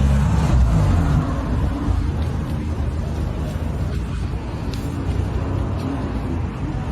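Steady low rumble of a motor vehicle running, with road or wind noise.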